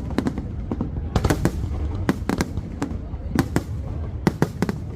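Aerial fireworks going off in quick, irregular succession: many sharp bangs and crackles in clusters, with a steady low rumble underneath.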